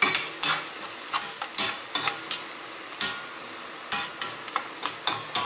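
Chopped onions frying in vegetable oil in a pan, sizzling steadily, while a metal spoon stirs them. The spoon scrapes and clicks against the pan in quick strokes about every half second.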